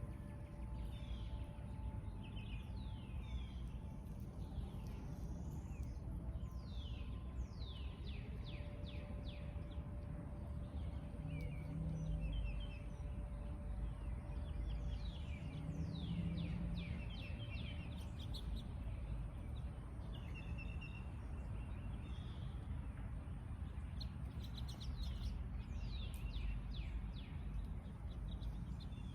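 Backyard songbirds chirping and calling throughout in quick, falling chirps, over a steady low background rumble.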